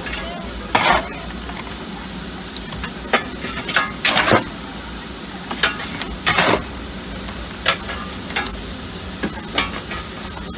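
Cab of a stopped two-foot-gauge steam locomotive, number 3: a steady hiss with about ten short, sharp scraping and clattering noises at irregular intervals.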